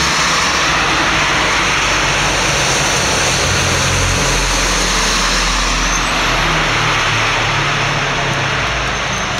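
A diesel tipper lorry approaching and driving past on a wet road, its engine strongest as it goes by about four seconds in, with steady tyre noise throughout.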